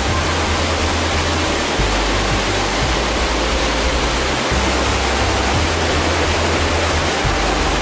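Steady, loud rush of a waterfall and whitewater rapids pouring over granite boulders in a narrow gorge.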